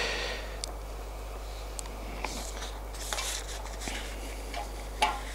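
Faint rustling and a few light clicks of notes being handled on a music stand, over quiet room tone with a steady low hum.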